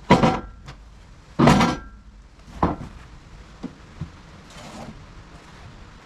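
Freshly sawn wooden boards knocking and clattering as they are handled and set down: three loud knocks in the first three seconds, then a few lighter taps.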